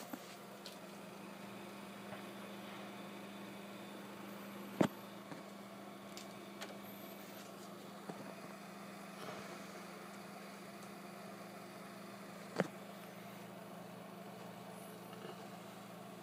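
Desktop PC running with its Cooler Master Hyper 212 Evo CPU cooler fitted: a steady low hum of its fans, picked up by a phone's microphone. Two sharp knocks sound, about five seconds in and again about thirteen seconds in.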